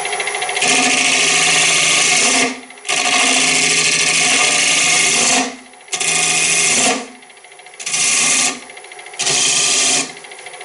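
A turning tool cutting the outside of a segmented wooden bowl spinning on a wood lathe, in five passes with short pauses between them, over the lathe's steady running.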